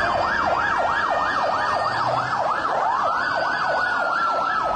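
Emergency vehicle sirens in a fast up-and-down yelp, about three sweeps a second. From about three seconds in, a second siren joins with one long tone that rises and then slowly falls.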